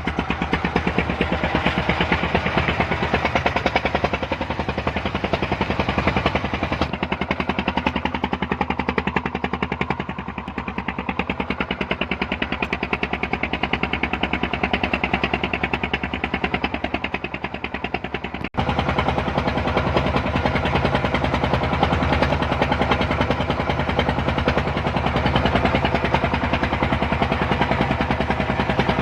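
A freshly repaired engine on a test run, running steadily with fast, even firing pulses. It gets slightly quieter about a third of the way in, then steps up abruptly in loudness about two-thirds of the way in.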